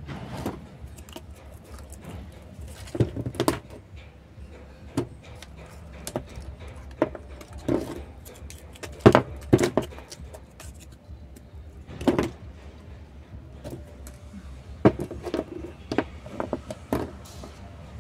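A knife scraping and knocking inside an old metal can to loosen packed, rotted potting soil, making irregular scrapes and metallic clinks with a few louder knocks. Soil and small drainage stones tumble out onto the table.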